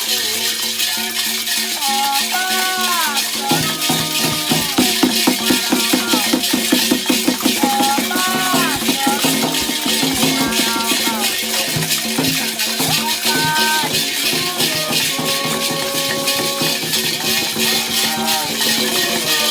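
Candomblé ritual music for Xangô: shaken rattles hissing steadily under voices singing in gliding phrases. A fast, regular low drumbeat comes in about three and a half seconds in.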